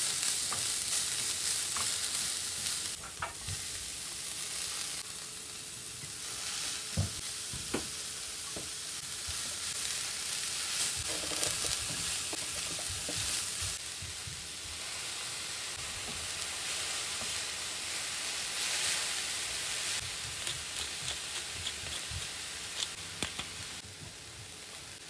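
Julienned carrots, shredded cabbage and green onions sizzling in a hot stainless steel skillet as they are stirred with a wooden spatula. The steady frying hiss is broken by light scrapes and taps of the spatula against the pan, and it gets a little quieter near the end.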